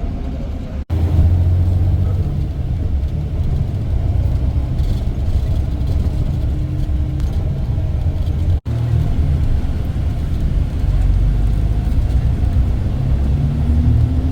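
Steady low rumble of a tour coach's engine and road noise, heard from inside the moving coach. It drops out abruptly for an instant twice.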